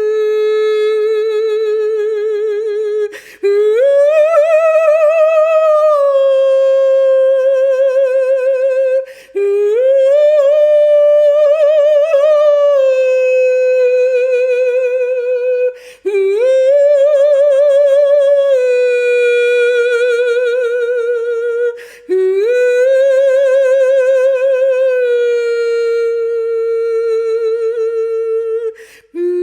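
A single unaccompanied voice intoning long, wordless held notes with a wide vibrato. Each phrase opens with an upward slide, then settles onto a slightly lower note, with a short break for breath about every six seconds.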